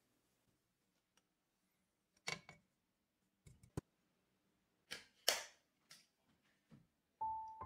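A few sharp knocks and brief scrapes of a stainless steel frying pan as toasted glutinous rice flour is tipped out onto a plate. Soft piano music starts near the end.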